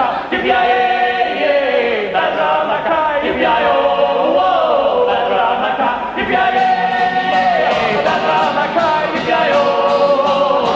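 Three male voices singing the closing chorus in close harmony, with long held notes that slide up and down and no clear words.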